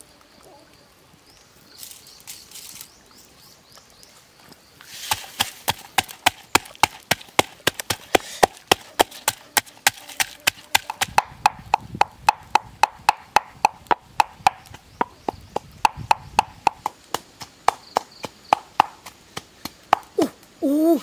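Pestle pounding red chilies and garlic in a mortar: steady rhythmic knocks, about three to four a second, each ringing briefly. The pounding starts about five seconds in.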